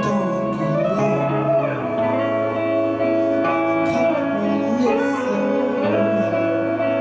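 Live psychedelic band music led by guitar: sustained chords over a held bass note that steps down about two seconds in, with a lead line gliding in pitch.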